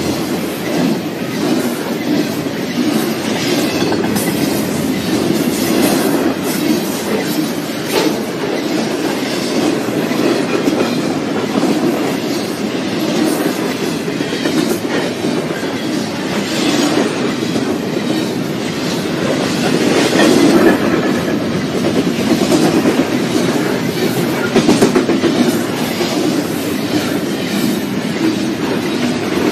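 Double-stack container freight cars rolling steadily past at speed: a continuous rumble of steel wheels on rail, broken by scattered clicks and clatter.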